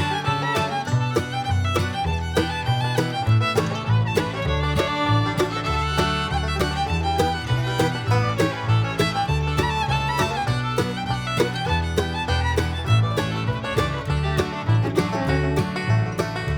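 Upbeat bluegrass-style background music with fiddle and banjo over a steady beat.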